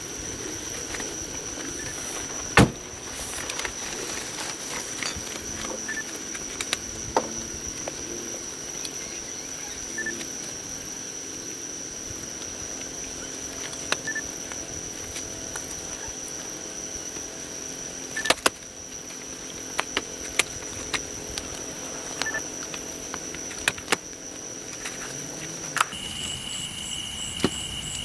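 Night insects calling: one steady high-pitched trill through most of the stretch, with scattered sharp clicks and knocks. Near the end it switches to a lower steady trill with a faint pulsing higher note.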